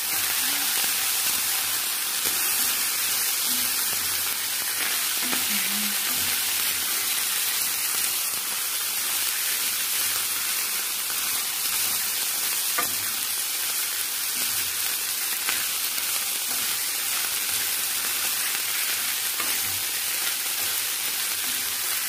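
Ground meat and sliced sausage sizzling steadily in a frying pan with tomato sauce and ketchup as a wooden spatula stirs them, with a few light clicks of the spatula against the pan.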